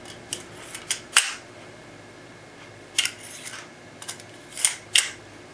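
Sharp clicks and clacks of a Walther PPK CO2 BB air pistol's magazine being released and slid out of the grip. The loudest click comes about a second in, with a few lighter ones near the middle and toward the end.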